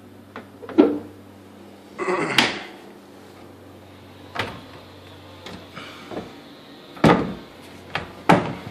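A dishwasher and a wooden kitchen cabinet door being shut and opened: a short sliding clatter about two seconds in and a handful of sharp knocks, over a low steady hum.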